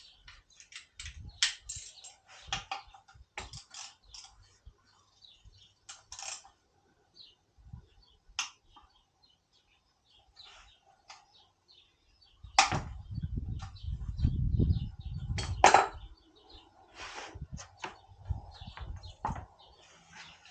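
Scattered sharp clicks and knocks, with a few seconds of low rumble and louder knocks about two-thirds of the way through.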